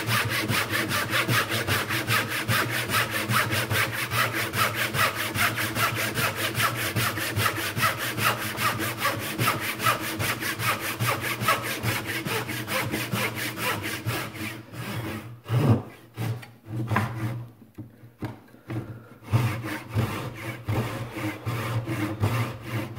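Dovetail saw cutting the side of a dovetail tail by hand: quick, even rasping strokes, several a second. About fifteen seconds in the sawing breaks off for a few seconds with a knock and a few scattered strokes, then picks up again.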